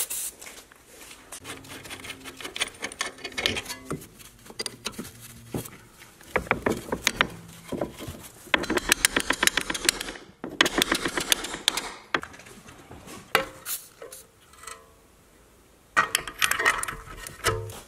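Hand tools working metal on a car's front suspension: bursts of quick metallic tapping and clicking as a taper punch is worked into the strut clamp on the steering knuckle, then a socket with extension and breaker bar turning the tie rod end nut near the end.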